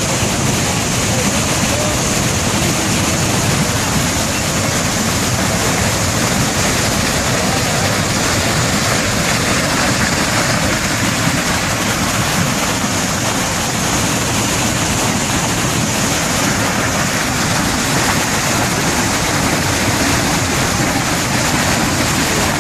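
Iguazú Falls: a large waterfall's loud, steady rush of falling water.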